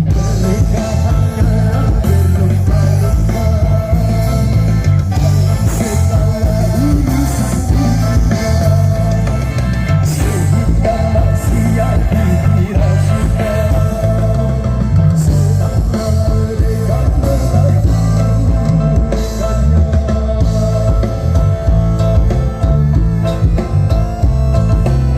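Live dangdut koplo band music played loud through a large sound system, with heavy, pounding bass under a steady beat, guitar, and a melody line.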